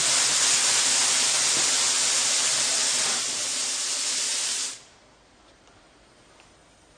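Loud, steady rushing hiss of pressurised gas being vented from a special-effects rig. It starts abruptly, eases a little after about three seconds and cuts off sharply after nearly five seconds.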